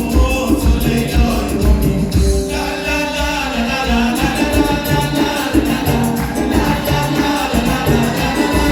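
Southern Iranian ney-anban (Persian bagpipe) playing a reedy melody over steady percussion in live band music.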